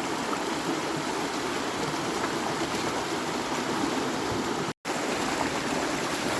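Steady rushing of a creek swollen with rainwater and flowing fast. The sound cuts out completely for an instant about three-quarters of the way through.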